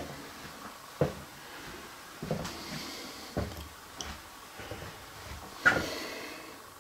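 A handful of irregular short knocks and thumps, about five, the loudest near the end.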